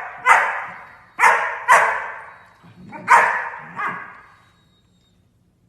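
A dog barking: five loud barks over about four seconds, each fading out slowly.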